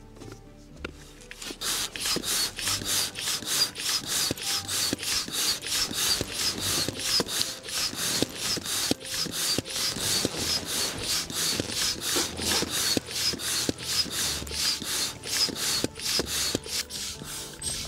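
Hand-operated air pump being worked fast: a rhythmic hissing whoosh with each stroke, about three a second, as air is forced through the hose into an inflatable tent's air beams. The strokes start about a second and a half in.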